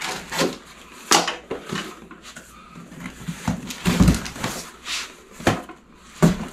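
Small cardboard boxes being lifted out of a shipping box and set down on a table: a string of knocks, thumps and scuffs, the loudest about four seconds in.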